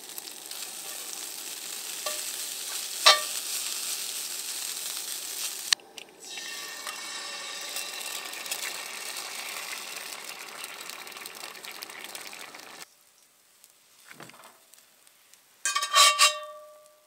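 Potatoes sizzling steadily as they fry in bacon or sausage grease, with a sharp metal clink of a utensil against the pan about three seconds in. The sizzle stops about thirteen seconds in, and near the end there is a brief ringing metal clank.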